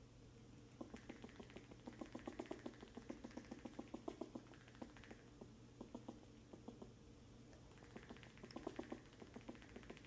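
Fox squirrel giving its alarm call against an intruder squirrel: faint, rapid runs of short clicking barks. A long bout starts about a second in and a shorter one comes near the end.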